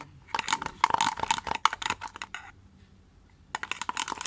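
Glue slime being stirred in a container, making rapid sticky clicking and crackling. The clicking stops for about a second past the middle, then starts again near the end.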